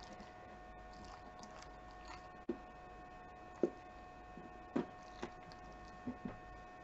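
A handful of short, sharp clicks and taps on a tabletop, about six spread over a few seconds, as pieces of tomato are set down in front of a Keeshond dog that noses at them, over a faint steady hum.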